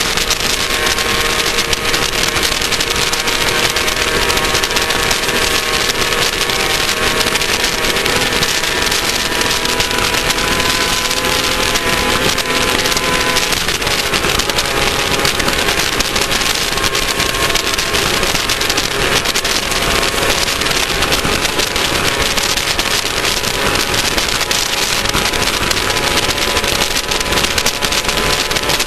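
Class 1600 off-road race car's air-cooled Volkswagen 1600 engine running hard at fairly steady revs. Under it is a loud, even rushing noise of wind and running gear.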